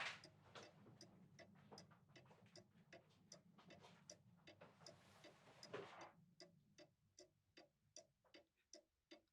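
Faint, steady ticking, about four ticks a second, over a low hum that fades out about six seconds in. A soft rushing sound comes at the very start and again at about five to six seconds.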